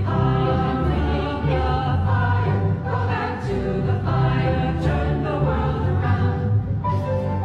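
Music: a choir singing held notes over a steady low accompaniment.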